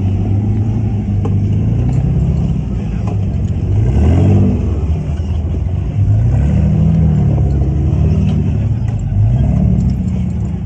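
A motor vehicle's engine running loud, its pitch rising and falling several times as the throttle is opened and eased off, with a few light knocks and rattles.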